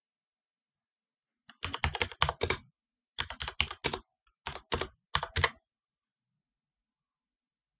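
Computer keyboard typing: a short command entered in four quick runs of keystrokes, from about a second and a half to five and a half seconds in.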